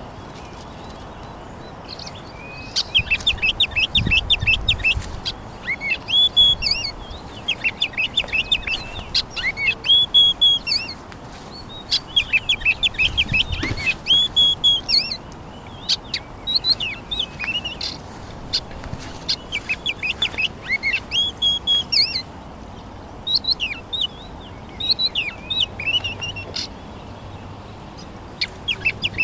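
Small birds chirping in quick runs of high notes, bout after bout with short pauses between, over a steady background hiss.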